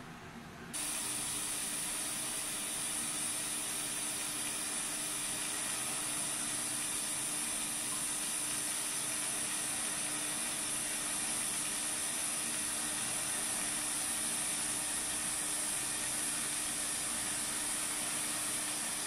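TIG welding arc laying a straight overlay bead: a steady hiss with a thin low tone beneath, starting suddenly about a second in as the arc strikes.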